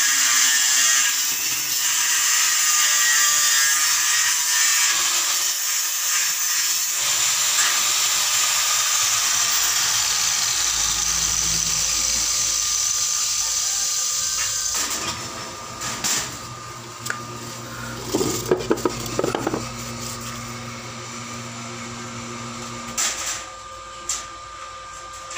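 Angle grinder grinding the steel frame of a sliding gate, a steady whining hiss that stops about fourteen seconds in. After it, a quieter stretch with a low hum and a few sharp metal knocks and a brief clatter.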